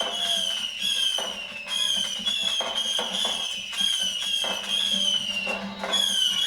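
Whistling fireworks going off in quick succession, heard through a television: a string of short whistles, each falling in pitch, with sharp pops between them.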